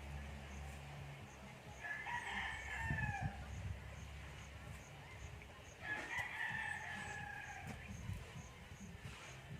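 A rooster crowing twice, each crow lasting a second and a half to two seconds, the second coming about four seconds after the first.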